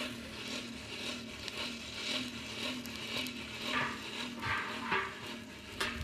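Rasping scrapes of a cloth pad rubbed around the inside of a hot copper pot as it is tinned, over a steady whirring that pulses about three times a second, from air being driven into the charcoal fire beneath. A sharp click comes near the end.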